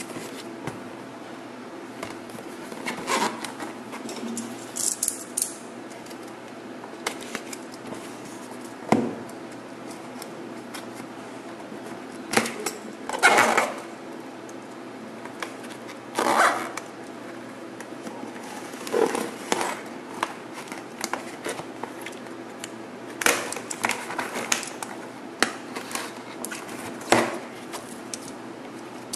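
Cardboard shipping box being handled and opened by hand: irregular scrapes, rubs and taps of cardboard flaps, with several longer scraping or tearing sounds, over a steady faint hum.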